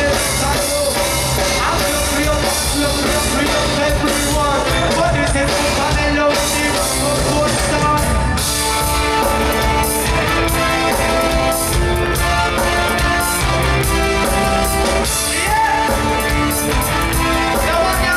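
Live reggae band playing through a loud festival PA, heard from within the crowd: drums, bass, guitars and keyboard, with a singer's voice over them.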